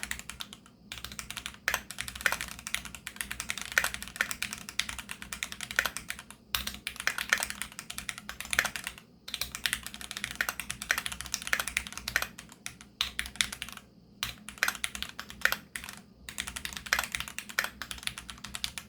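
Typing on a Keychron Q2 aluminium-case mechanical keyboard with Gateron G Pro Brown tactile switches: fast runs of keystrokes with short pauses between them, stopping at the end.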